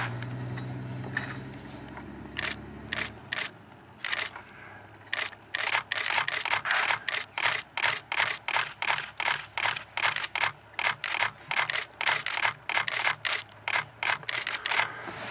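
DSLR camera shutter firing: a few single shots, then from about five seconds in a continuous burst of about three shots a second. A low engine hum runs under the first few seconds and stops about three seconds in.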